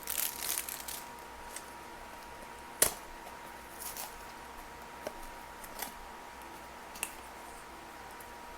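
Handling of a sealed Funko mystery minis blind box: plastic wrapping crinkling briefly at the start, then a few scattered sharp clicks and taps of the packaging, the loudest about three seconds in.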